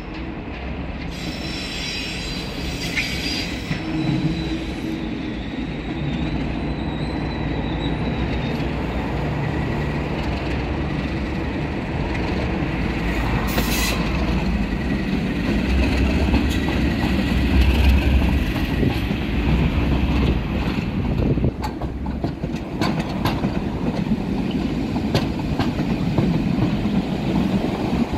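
Class 37 diesel locomotive, its English Electric V12 engine running as it hauls a test train past, the rumble loudest as the locomotive goes by about two-thirds of the way through. High wheel squeal sounds from the curved track in the first half, and the coaches' wheels click over rail joints near the end.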